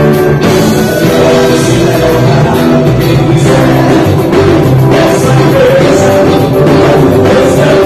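Live worship band playing: a man singing over a strummed nylon-string electro-acoustic guitar, with drums and cymbals and keyboard.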